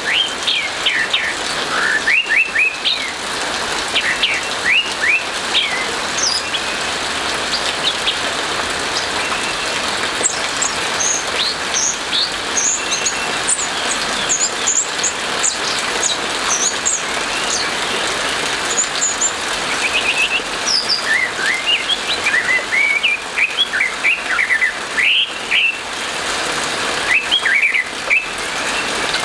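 Orange-headed thrush singing its full song: phrases of quick whistled and sweeping notes, some low and falling, some high and thin. Underneath is a steady hiss of rain.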